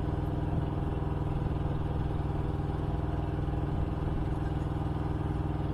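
A steady low mechanical hum, like an engine or motor running at a constant idle.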